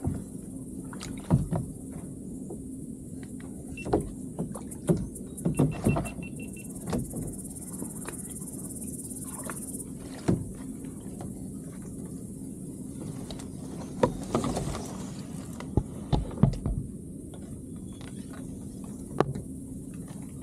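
Irregular knocks, thumps and scrapes of a paddle and reed stems against the plastic hull of a Tucktec folding kayak as it sits in the reeds. Under them run a steady low hum and a high insect buzz.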